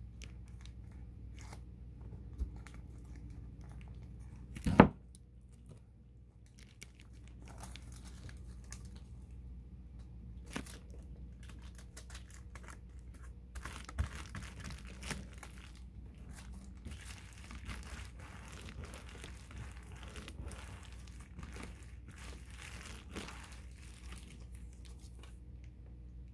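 Foil-faced floor insulation crinkling and tearing as it is handled and cut with a blade, with scattered scrapes and clicks mostly in the second half. A single sharp knock about five seconds in is the loudest sound, over a faint steady low hum.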